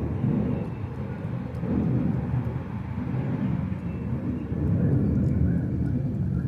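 Low, uneven rumble of outdoor background noise that swells and eases.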